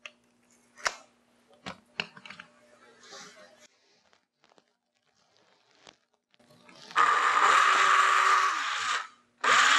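Cordless drill with an eighth-inch bit drilling a hole in the top-frame tubing, in two runs: the first starts about seven seconds in and winds down after two seconds, and the second spins up again near the end. A few light clicks come before it.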